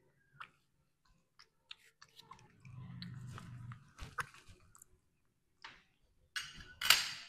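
A small cleaver slices pieces off a soft yellow fruit into a bowl with light cutting clicks, mixed with wet chewing and biting sounds. A louder brief rustle comes near the end.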